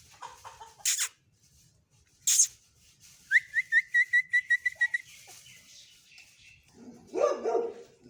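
A dog vocalizes: one short call about 7 s in, with a few faint ones at the start. About 3 s in, a quick run of about ten high chirps lasts a second and a half.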